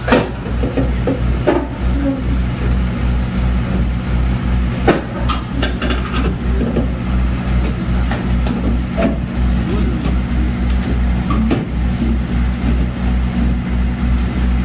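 Komatsu PC130F excavator's diesel engine running under load with a low, pulsing throb as the machine tracks up steel ramps onto a truck bed. Its steel tracks clank sharply against the ramps a handful of times.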